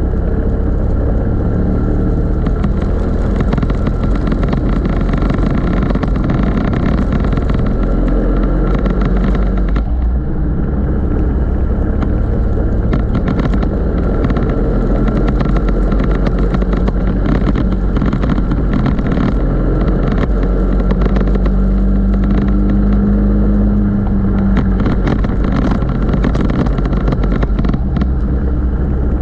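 Racing go-kart engine running hard at racing speed, heard close up from the kart itself, its note shifting as the revs change through the lap.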